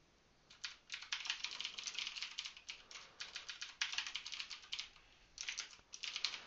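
Fast typing on a computer keyboard, keystrokes clicking in quick runs. It starts about half a second in, with a brief pause about five seconds in.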